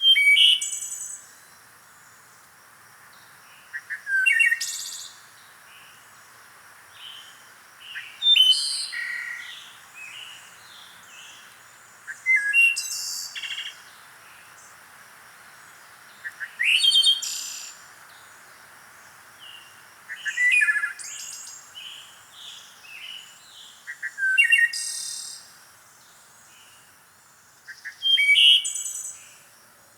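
Songbirds singing: a loud, quick, high-pitched song phrase of about a second repeats roughly every four seconds, with fainter chirps between, over a faint steady hiss.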